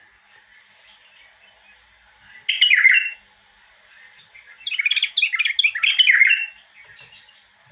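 Caged bulbul singing: a short phrase of song about two and a half seconds in, then a longer run of quick, varied notes.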